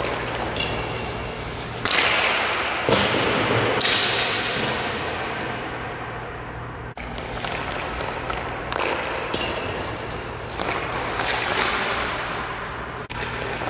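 Several ice hockey shots echoing in an empty indoor arena: sharp cracks of the stick striking the puck and the puck hitting the boards, each ringing out in the rink's reverberation. The loudest come in quick succession a couple of seconds in, with weaker ones later.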